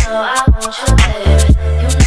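Dance music with a heavy bass beat, about two beats a second, and a melody over it.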